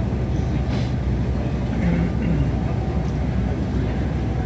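Steady low rumble of cabin noise inside a CRJ-900 regional jet on the ground after landing.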